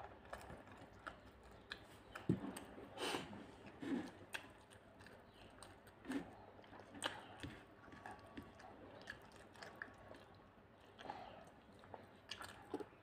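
Faint chewing and eating sounds of people eating rice and greens with their hands: scattered soft clicks and smacks at irregular moments.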